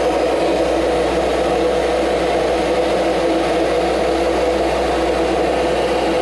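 Kirby Generation 5 upright vacuum cleaner running with a steady whirring hum.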